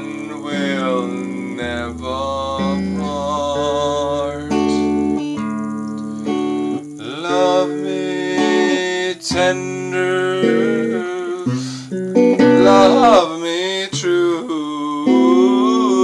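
A man singing a wavering melody while playing held chords on a guitar.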